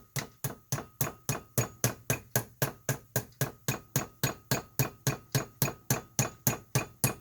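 Hammer tapping rapidly and evenly on metal, about four blows a second, to drive a pin out of an 8 3/4 differential carrier; each blow leaves a short metallic ring.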